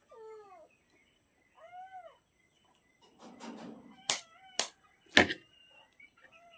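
A raw egg knocked three times against a metal spoon to crack it, sharp clicks about half a second apart. Short arched mews like a cat's come twice in the first two seconds, and a longer wavering mew near the end.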